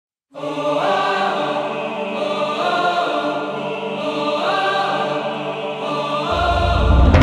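Orchestral soundtrack music with long held chords that change every second or two, starting a moment in. A heavy deep bass comes in near the end.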